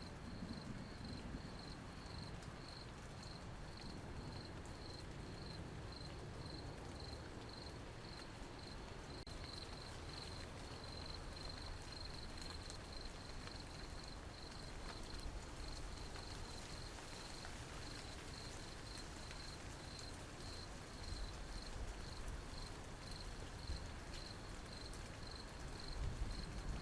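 Cricket chirping in an even pulsing rhythm, about three chirps a second, over a faint steady low rumble.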